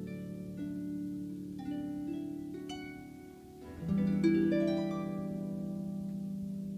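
Harp played live: slow plucked notes that ring on and overlap. About four seconds in it swells into a louder, fuller chord.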